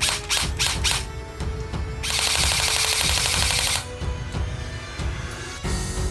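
Gunfire sounds: a few quick single shots in the first second, then a continuous automatic burst lasting nearly two seconds, over background music.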